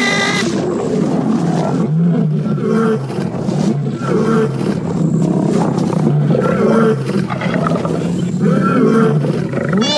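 Cats fighting: repeated growling and snarling, harsh and loud throughout.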